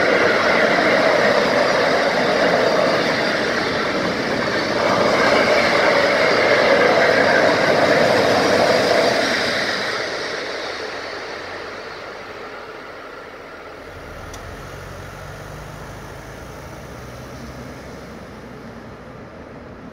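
Freight train of empty car-carrier wagons rolling through a level crossing, a steady noise of wheels on rail that dies away about ten seconds in as the last wagon passes. Later a car's engine is heard pulling away across the tracks.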